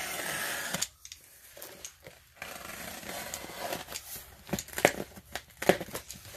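A taped cardboard box being torn open by hand: a long rasp of packing tape and cardboard tearing for about the first second, then cardboard scraping and rustling, with several sharp short snaps near the end.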